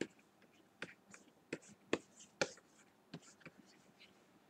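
A stylus tapping and stroking on a drawing tablet during quick sketching: about ten sharp, irregular clicks, some with short scratchy strokes between them.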